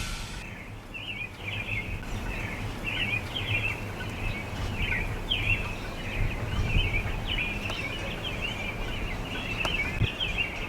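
Small birds chirping: many short high calls one after another, over a low steady background rumble.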